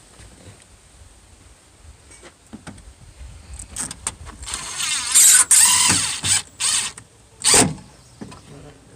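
A few sharp clacks, then a small electric motor whirring in several short bursts, the longest lasting about a second and a half.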